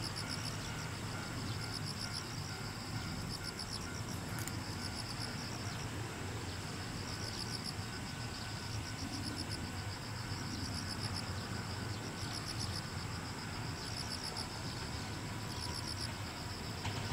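Insects chirping in short, high, pulsed phrases that repeat about once every second or so, over a steady low background hum.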